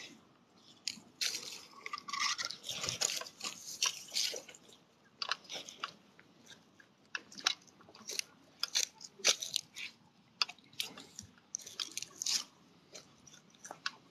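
Footsteps crunching on dry leaves and twigs, a string of irregular sharp crackles.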